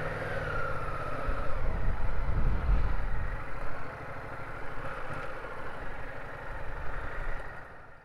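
Yamaha MT-07's 689 cc parallel-twin engine running at low speed as the bike pulls away. It gets louder about two to three seconds in, then eases off and fades out near the end.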